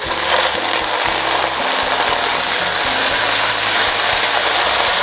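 Water poured into a hot wok of fried garlic, shallots and chilies. It sets off a loud, steady sizzle that jumps up as the pour begins.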